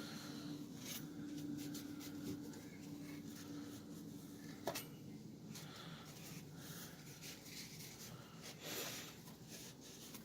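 Faint rubbing and scraping of hands handling computer parts, with one sharp click about halfway through, over a low steady hum.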